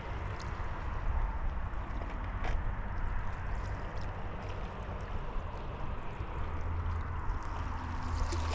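Steady wind rumble on the microphone over surf washing on a sandy beach.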